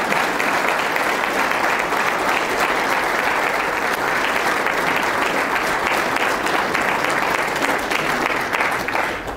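A large audience applauding steadily, the clapping beginning to die away near the end.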